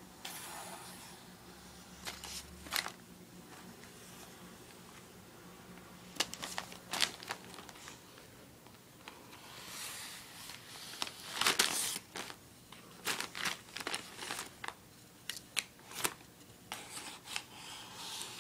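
A drumstick being batted about by a cat, giving irregular taps, knocks and rustling scrapes. The sounds are loudest and busiest about two-thirds of the way through.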